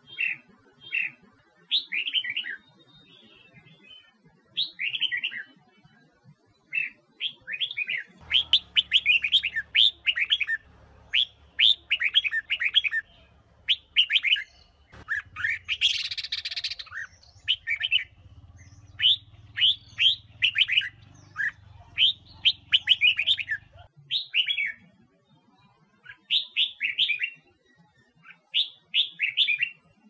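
Red-whiskered bulbul singing: bright, quick warbled phrases of short gliding notes, repeated with brief pauses. A harsh rasping sound comes about halfway through, and a faint low hum sits under the middle part.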